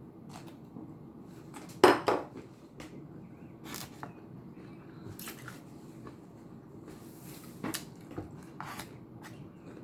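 Cutlery clinking and knocking against dishes during eating: scattered sharp clicks, the loudest about two seconds in.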